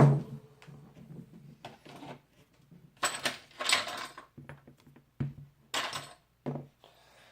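Metal clinking, rattling and scraping in short separate bursts as an opened padlock and its small steel parts and tools are handled while the lock is taken apart.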